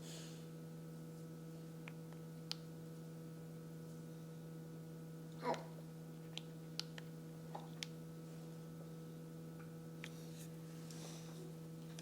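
Steady low electrical hum with faint overtones, broken by a few faint clicks and one brief louder sound about five and a half seconds in.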